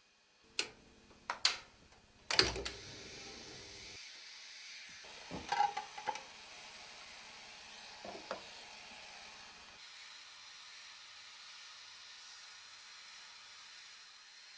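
Scattered sharp clicks and knocks: the loudest about two and a half seconds in, a small cluster around five to six seconds, and a pair near eight seconds. A faint steady hiss runs beneath them.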